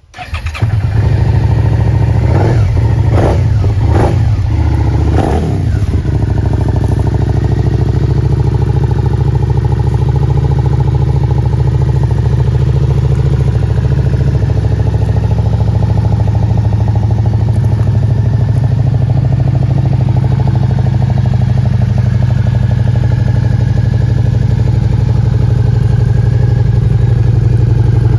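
A 2019 Suzuki SV650's V-twin engine starts up and gets a few quick throttle blips in its first seconds, then settles to a steady idle.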